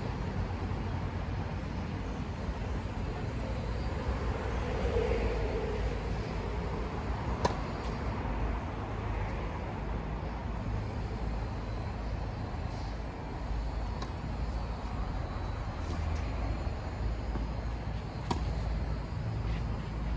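Tennis balls struck by rackets during a rally: a sharp pop about seven seconds in, the loudest sound, and a few fainter pops later on, over a steady low background rumble.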